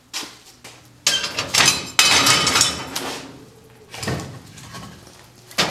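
Scraping and clanking of cast-iron cooktop parts on a wood-burning kitchen stove as a lid is taken off to tend the fire, with a sharp metal knock near the end.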